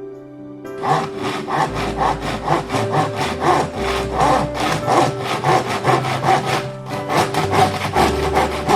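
Sandpaper rubbed back and forth over the joints of a bamboo cane, quick even strokes about three or four a second, starting under a second in. The sanding smooths the nodes so a cork handle and reel seat can slide along the cane.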